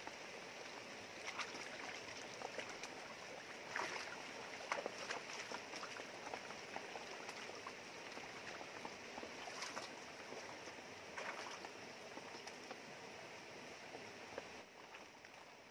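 Shallow river running steadily over rocks, with short splashes every few seconds as a plucked chicken is rinsed and scrubbed by hand in the water.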